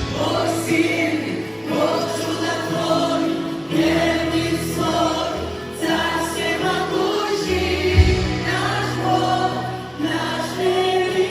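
Background music: a choir singing with instrumental backing over a sustained bass line, with a deep beat about eight seconds in.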